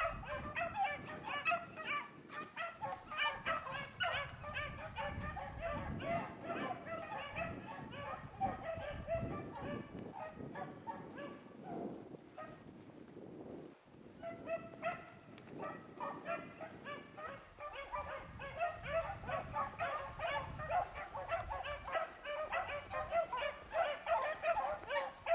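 A pack of beagles baying as they run a rabbit, many short calls overlapping in a steady chorus. The chorus thins out about twelve seconds in and picks up again a couple of seconds later.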